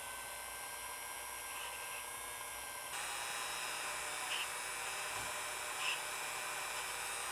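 Dremel rotary tool running a felt polishing bob against a pistol sear, a steady high whine with several tones, polishing the sear's mating surface to a mirror finish. The whine steps up in level about three seconds in, with two short louder spots later on.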